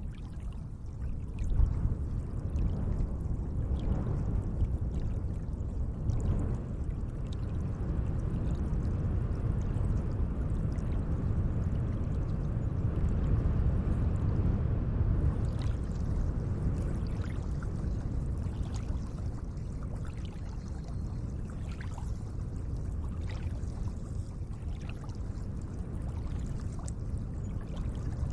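Lake water lapping and sloshing gently: a steady low wash with small splashes and drips scattered through it, more of them in the second half.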